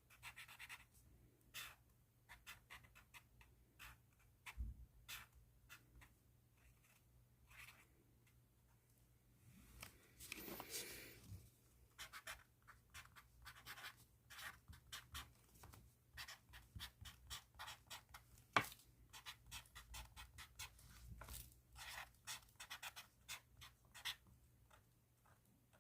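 Pen writing on paper: quiet, irregular short scratchy strokes, with a longer, denser stretch of scratching about ten seconds in.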